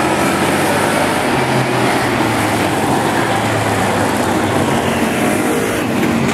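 Engines of several demolition-derby race cars and trucks running together as a loud, steady drone while the pack laps the track.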